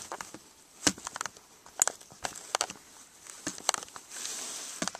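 Irregular clicks and taps from a handheld camera being gripped and repositioned, with a short hiss about four seconds in.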